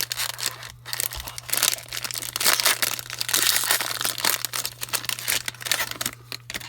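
Plastic trading-card packaging crinkling and rustling as it is handled, in quick irregular crackles that ease off near the end, over a steady low electrical hum.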